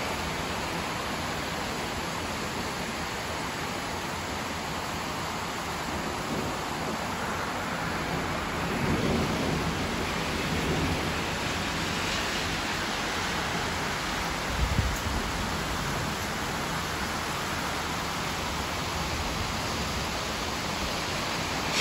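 Steady rain falling in a continuous hiss. A low rumble swells about nine seconds in, and a brief low thump comes a few seconds later.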